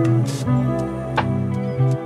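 Gentle instrumental background music of held notes, with a plucked note struck about every second and a half.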